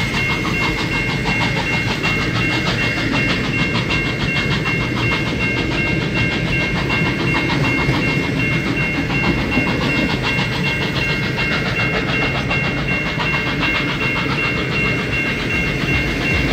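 Heritage train passing close by, a steam locomotive working hard at its head with diesel locomotives behind it, then the carriages rolling past with wheels rattling over the rails. A steady high-pitched ringing sounds over it.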